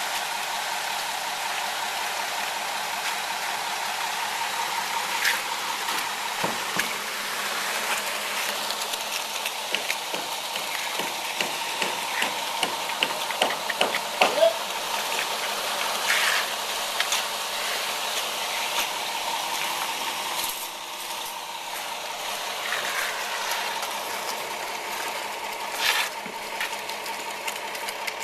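Magnesium concrete float worked over freshly placed wet concrete in gentle up-and-down strokes, making soft scrapes and light taps, over a steady engine-like machine drone.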